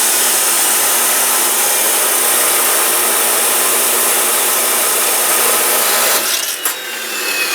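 Chop saw cutting through steel bar stock, a loud steady grinding hiss. About six seconds in the sound eases and changes as the cut finishes.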